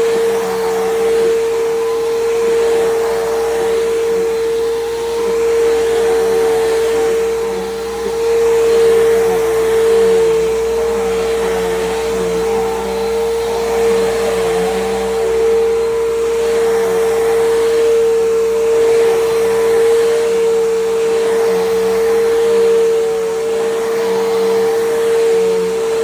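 Bissell PowerGroom bagless upright vacuum cleaner running steadily, its motor giving a constant whine.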